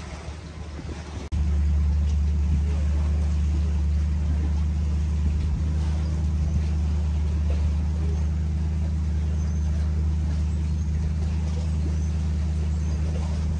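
An engine running steadily with a low, even drone that sets in abruptly about a second in.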